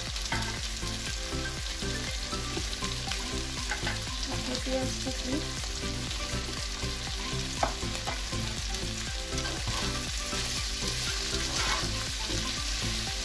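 Chicken and sliced capsicum, carrot and onion sizzling in a hot nonstick frying pan while being stirred and tossed with a slotted spatula. There is a sharper knock about eight seconds in.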